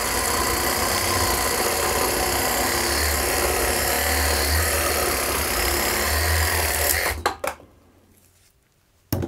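Bosch GSA 10.8 V cordless reciprocating saw with a coarse wood blade running steadily at full speed as it cuts through a wooden board. The saw stops about seven seconds in as the cut finishes, and a single knock follows near the end.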